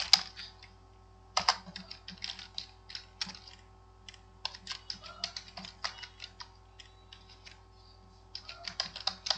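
Typing on a computer keyboard: irregular runs of keystrokes with short pauses as a license key is entered, over a faint steady hum.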